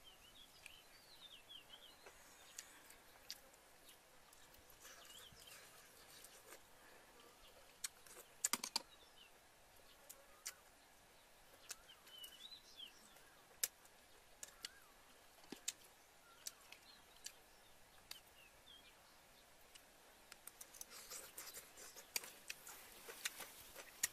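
Near silence with scattered faint clicks and taps of hands and a spoon handling shrimp on a plate, including a sharper cluster of clicks about eight seconds in and denser tapping near the end. Faint bird chirps come and go in the background.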